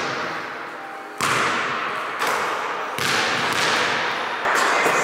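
Basketballs bouncing on a hardwood gym floor: four sharp thuds, each with a long echo from the hall.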